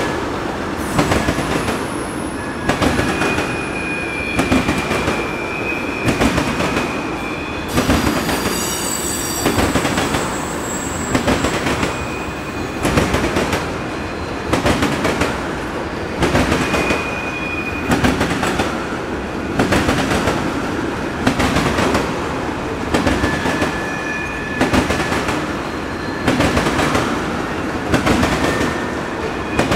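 Loaded ethanol tank cars rolling past, their steel wheels clacking over the rail joints in a steady rhythm of a clattering group about every second and a half, over a constant rumble. A high wheel squeal comes and goes.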